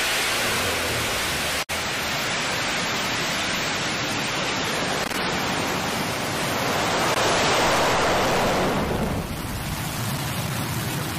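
New Shepard booster's BE-3 hydrogen-fuelled rocket engine at liftoff, a loud, steady rush of noise. It has a split-second dropout about two seconds in, swells about seven seconds in, and thins near the end as the rocket climbs away.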